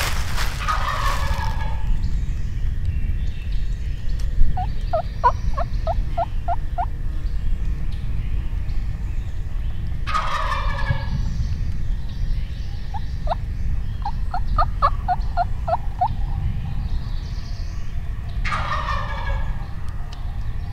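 Wild turkey gobbler gobbling three times, roughly every nine seconds, each gobble a loud rattling call lasting about a second and a half. Between the gobbles come two runs of short, sharp, evenly spaced notes, under a steady low rumble.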